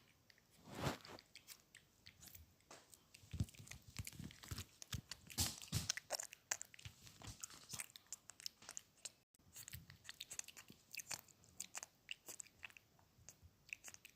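A person chewing and crunching food: irregular crunches and small mouth clicks, loudest between about three and six seconds in.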